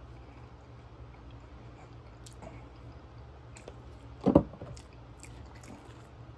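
Plastic squeeze bottle of ketchup squeezed over fries: about four seconds in it gives one short, low squirt-splutter, with a few faint clicks before it. A steady low hum runs underneath.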